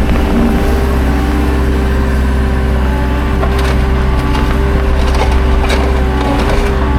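Skid steer engine running steadily with a constant whine above it, while logs in the grapple give a few scattered knocks and cracks in the second half.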